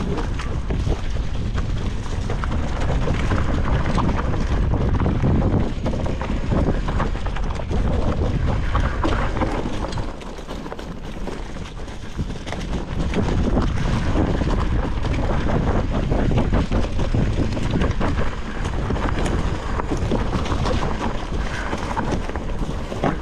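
Titanium hardtail mountain bike descending a dirt singletrack: wind rushing on the microphone over tyre noise on dirt and leaves, with many small clatters and knocks from the rigid bike over bumps. The rush eases briefly about ten seconds in.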